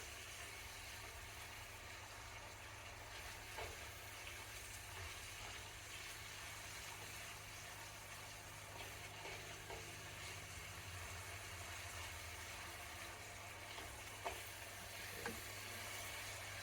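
Curry powder mixture frying in a pan with a steady, faint sizzle while it is stirred, with a few sharp taps of the utensil against the pan, the loudest two near the end.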